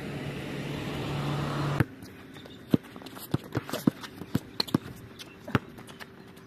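A steady rushing noise with a low hum that cuts off abruptly about two seconds in, followed by a string of sharp, irregular knocks: a basketball bouncing and players' footsteps on an outdoor hard court.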